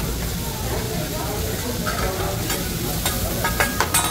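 Food sizzling on a hot hibachi griddle, with sharp metal clinks from the chef's spatulas striking the plate, several in quick succession near the end.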